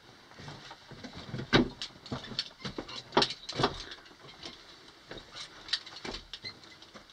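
Footsteps crunching and scuffing on the loose rock and gravel floor of a mine tunnel, an uneven run of steps with a few louder knocks about a second and a half in and around three seconds in.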